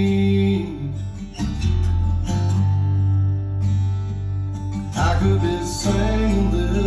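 Acoustic guitar-led song playing back over a hi-fi system in an instrumental passage between sung lines, with deep bass notes that change every second or so under the picked guitar.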